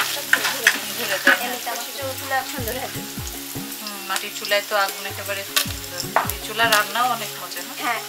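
Sliced onions, dried red chillies, bay leaves and whole spices sizzling in hot oil in a large aluminium pot. A wooden spatula stirs them, with repeated short scrapes and knocks against the metal.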